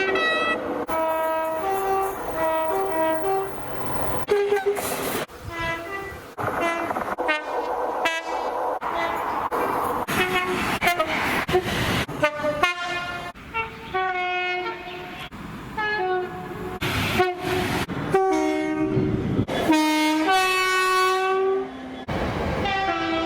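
A quick succession of train horns, many of them two-tone blasts alternating a high and a low note, each clip cut short. One horn near the end holds a long single note, and there is train and rail noise between the blasts.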